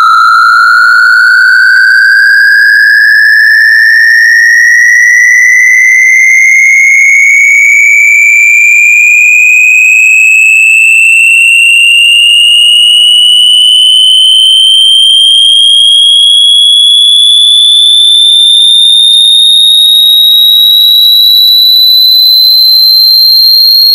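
Loud synthesized electronic tone gliding slowly and evenly upward in pitch, from a high whine to a much shriller one, with fainter higher tones above it.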